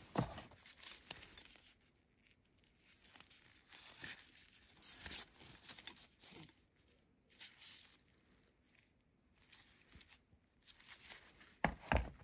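Gloved hands rustling and crinkling as they handle a rusty iron G clamp, with a dull knock as the clamp is moved on a rubber mat at the start and two more knocks shortly before the end.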